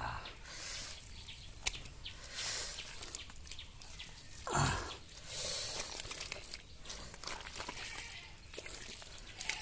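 Hands digging in wet mud at a shallow water-filled hole: squelching, scattered small clicks and light splashes of muddy water. About four and a half seconds in there is a brief, louder sound that falls in pitch.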